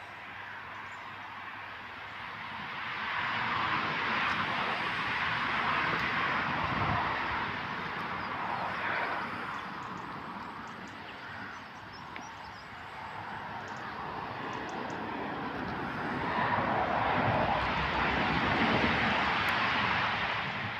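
Rushing noise of passing road traffic that builds and fades twice, each pass lasting several seconds.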